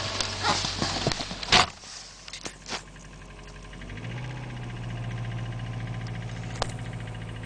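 Subaru engine running with irregular sharp knocks and clicks, ending in a loud knock about a second and a half in. After a quieter stretch with a few clicks, a steady low hum starts about four seconds in.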